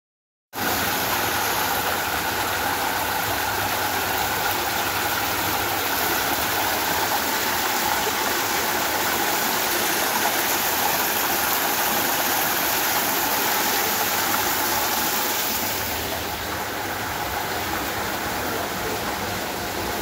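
Water cascading down a man-made rock waterfall and splashing into its pool: a steady rushing, a little softer after about sixteen seconds.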